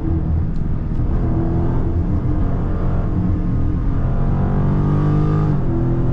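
The Dodge Charger's 392 cubic-inch (6.4 L) Hemi V8 pulling under load, heard from inside the cabin. The engine note climbs steadily, then drops abruptly near the end as the transmission upshifts.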